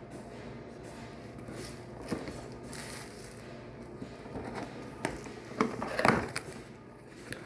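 Clear plastic shrink-wrap crinkling and rustling as it is pulled off a cardboard box, with a cluster of louder crackles about five to six seconds in.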